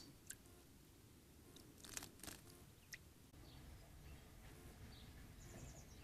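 Faint water splashes from a Eurasian tree sparrow bathing in a shallow bird bath: a few short, sharp splashes in the first three seconds. Faint, brief high bird chirps follow, with a quick run of high ticks near the end.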